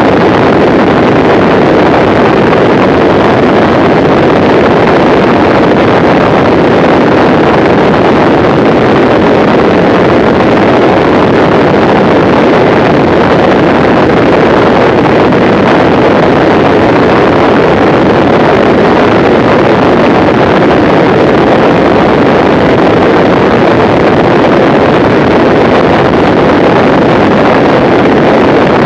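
Mooney M20C single-engine light aircraft in cruise flight at about 175 mph: a loud, unchanging rush of airflow and engine noise, with wind buffeting the camera's microphone.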